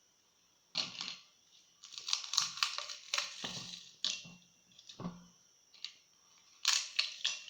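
Dried red chili peppers crackling and crunching as they are broken into pieces, in a run of irregular brittle crackles starting about a second in.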